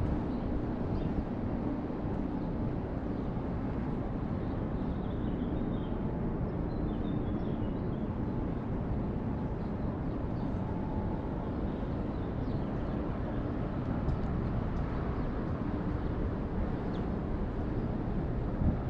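Steady low rumble of city outdoor ambience, with a faint droning hum that comes and goes and a few faint high chirps between about five and eight seconds in.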